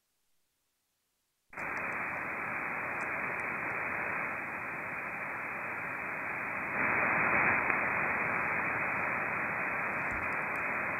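Icom IC-7610 receiver's band noise on 20-metre upper sideband: an even hiss, cut off above the 2.4 kHz receive filter, with no signal on the frequency. It comes in about a second and a half in, after a moment of silence, and swells briefly near the middle.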